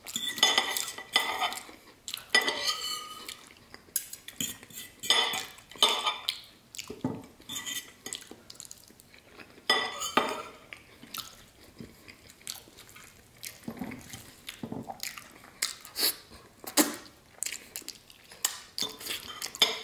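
Metal cutlery clinking and scraping on a ceramic plate as a knife and fork cut roast chicken and a spoon scoops gravy: irregular taps and scrapes, some clinks ringing briefly.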